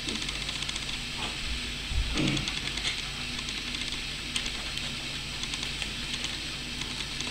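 Steady background hiss with a low hum, a few faint clicks and a brief muffled sound about two seconds in.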